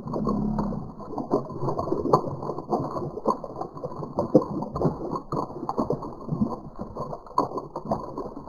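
Domestic ducks dabbling in a water trough, their bills dipping, slurping and splashing at the surface in many quick, irregular wet clicks and ticks as they sift floating grain.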